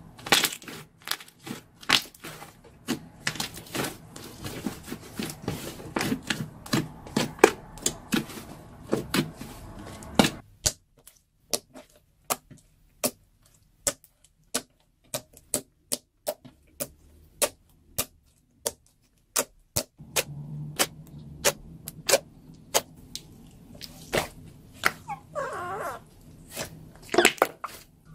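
Hands squeezing, poking and stretching slime, air pockets bursting in a long run of sharp pops and clicks, dense at first and then sparser, about one or two a second.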